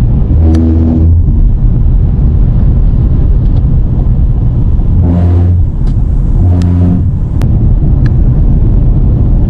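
Road and engine noise inside a moving car's cabin: a loud, steady low rumble. Three times a short, steady low droning tone, about half a second long, rises above it.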